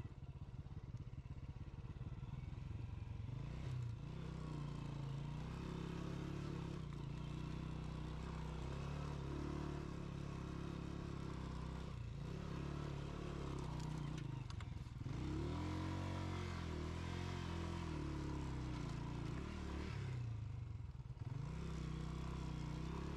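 Honda CG125's single-cylinder four-stroke engine running while the bike is ridden. The revs rise and fall and the note dips briefly several times, with a rising sweep about two-thirds of the way through.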